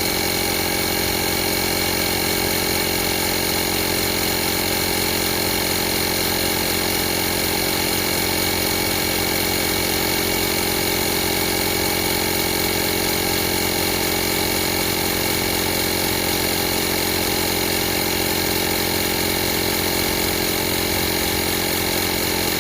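Skey 12-volt portable tire inflator's small electric piston compressor running steadily at an even pitch.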